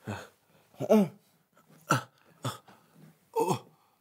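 A man's voice making five short grunts, about one a second, like the strained noises of someone heaving himself up.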